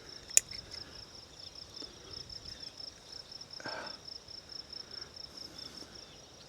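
Insects, most likely crickets, chirping in a steady, rapid, high-pitched pulsing trill. A single sharp click comes about half a second in.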